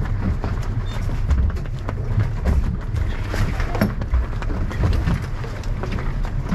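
Boat under way: a steady low rumble from the engine and hull, swelling unevenly, with a few short knocks.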